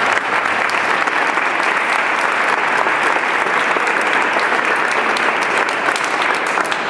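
An audience applauding, a steady round of many hands clapping.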